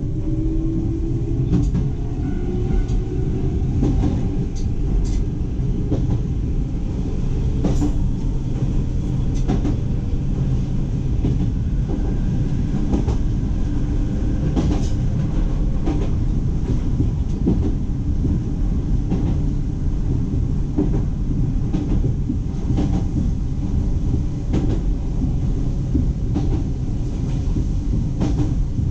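Iga Railway electric train running along the track: a steady low rumble with irregular sharp clicks of the wheels over rail joints, and a motor whine rising in pitch over the first few seconds.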